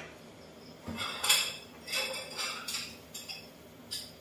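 Metal kitchen utensils and cookware clinking and clattering at the stove: a run of sharp clinks with a brief metallic ring, the loudest about a second in and the last near the end.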